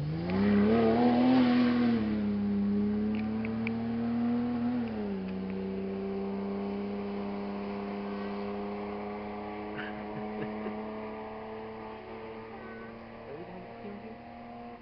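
Rally car engine revving hard as it pulls away. Its pitch rises, then drops once about five seconds in at a gear change, and then holds a steady note that slowly fades as the car recedes.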